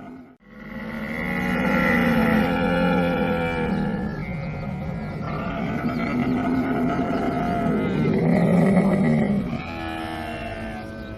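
A camel calling: after a brief gap, two long calls of several seconds each with a rough, pitched quality, the second loudest near its end, then a quieter call falling in pitch.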